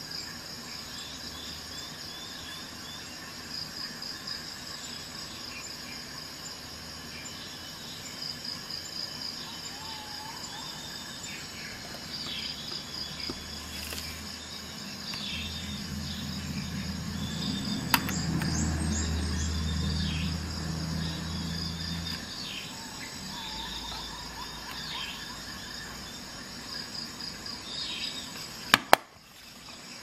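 Crickets chirping in a steady pulsing trill, with a low hum swelling in the middle and sharp clicks, one partway through and two close together near the end.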